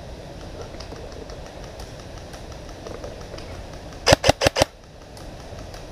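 G&G M4 Predator airsoft electric rifle firing a quick burst of four shots about four seconds in.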